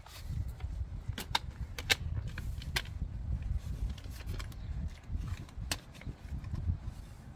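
Scattered sharp plastic clicks and knocks, about half a dozen, as a number plate is handled and slid into a plastic number plate frame camera, over a steady low rumble.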